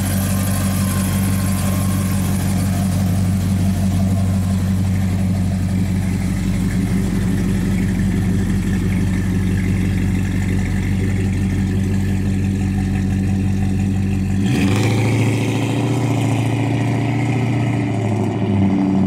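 A 302 cubic-inch V8 in a 1974 Ford Ranchero, newly rebuilt with Edelbrock carburettor and new exhaust, idling steadily and loud. About fourteen seconds in, the engine note jumps higher as the car pulls away.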